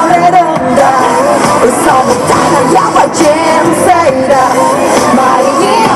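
Loud pop song with a singer's voice over the music, performed live.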